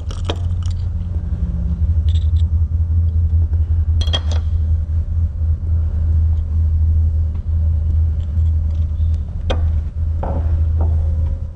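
Steady low hum that runs throughout, with a few light clicks and taps of small metal parts and a measuring tool being handled as a drifted-out shotgun hinge pin is measured.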